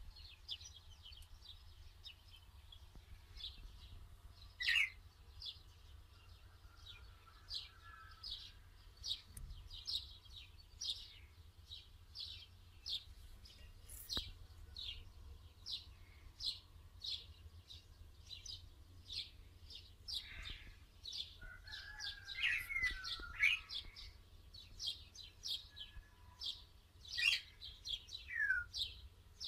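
An animal chirping over and over: short, high, slightly falling chirps at a steady rate of roughly two a second. A few lower, sliding calls from another animal come in about two-thirds of the way through.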